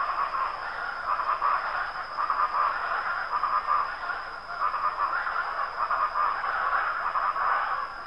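Early-morning rural ambience: a dense, pulsing chorus of many small animal calls in the middle range, over a steady high-pitched whine.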